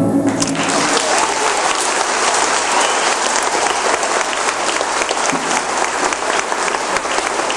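Audience clapping steadily, starting just as the dance music stops at the very beginning.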